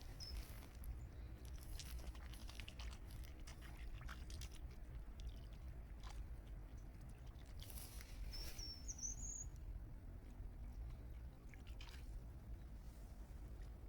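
A duck dabbling for food in water: scattered soft clicks and small splashes from its bill, over a faint steady low rumble. A short high chirp from a bird comes about nine seconds in.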